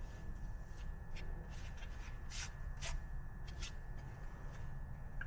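Hands setting paper gaskets and the carburetor spacer in place on an engine intake: scattered soft clicks and rustles at an uneven pace, over a steady low hum.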